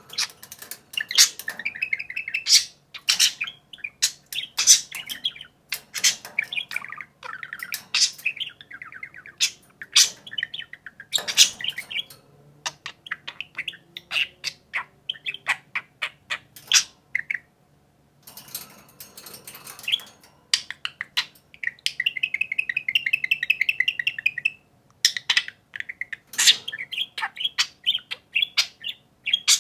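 Two pet budgerigars chattering to each other: rapid warbling runs broken by many sharp, high chirps, with a brief lull about two thirds of the way through.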